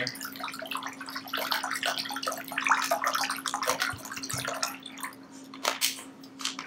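Water poured from a plastic drinking-water bottle into a bowl, splashing steadily, then stopping about four and a half seconds in.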